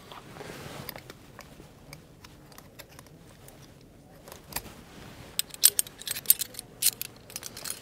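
Metal climbing gear clicking and clinking as a carabiner and Tibloc rope clamp are unclipped from the rope and handled: faint rustling, then a quick run of sharp metal clicks from about five seconds in.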